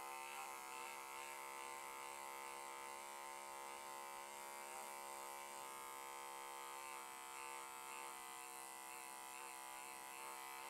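Remington beard trimmer running with a faint, steady buzz as it trims along a sideburn.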